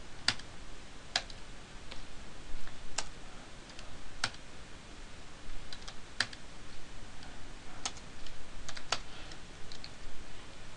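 Keystrokes on a computer keyboard as commands are typed into a terminal: single sharp clicks, unevenly spaced, with short pauses between them.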